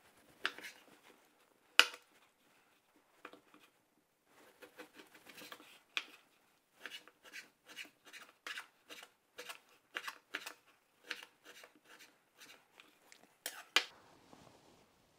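Chef's knife chopping guanciale on a bamboo cutting board: sharp knocks of the blade meeting the board, one loud knock about two seconds in, then a quick, even run of a few knocks a second, and a loud pair near the end.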